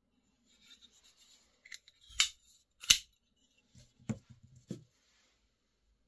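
Metal clicks and snaps of frame-lock folding knives being handled, with the blades folding and opening. There is a little faint rubbing first, then two sharp clicks about two and three seconds in, the second the loudest. A few softer clicks and knocks follow between about four and five seconds in.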